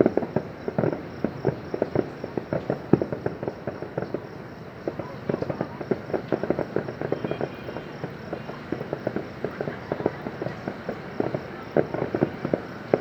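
Fireworks going off at a distance: a dense, irregular run of sharp pops and bangs that thins out in the middle and picks up again near the end.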